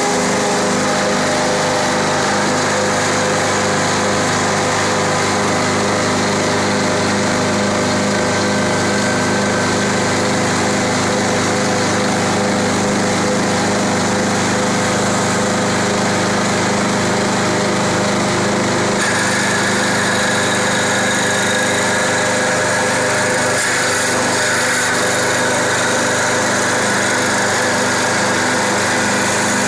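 CNC wood lathe running with a steady mechanical whine and hum of its motors. About two-thirds of the way in the sound turns brighter and a new, higher whine joins.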